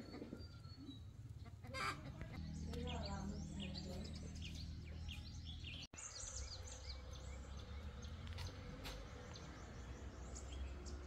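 Rural yard ambience: chickens clucking and small birds chirping, over a low steady hum.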